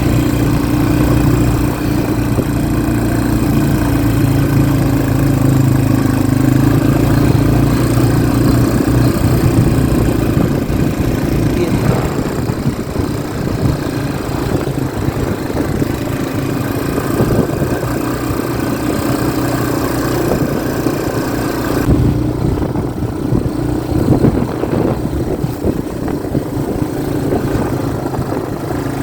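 Motorcycle engine running as the bike rides uphill, a steady hum for the first dozen seconds, then rougher and more uneven.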